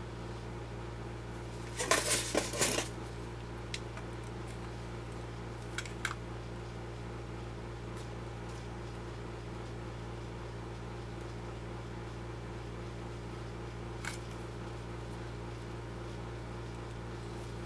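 A quick cluster of sharp clicks and knocks, small hard parts being handled, about two seconds in, then a few faint single ticks, over a steady electrical hum.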